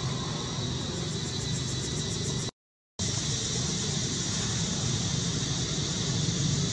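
Steady outdoor background noise: a low rumble with a constant high hum over it, dropping out completely for about half a second around two and a half seconds in.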